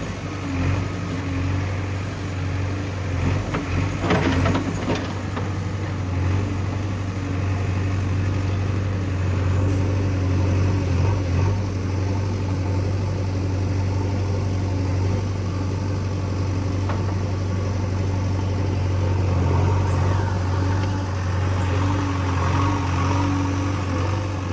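JCB 3DX backhoe loader's diesel engine running steadily, with a short clatter about four seconds in.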